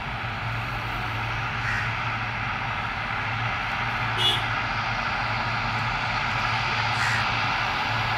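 Buddha Air ATR 42-500's twin turboprop engines and propellers running at low power as the aircraft rolls slowly along the runway toward the listener: a steady low hum under a broad whine, growing gradually louder. A brief high-pitched sound cuts in about four seconds in.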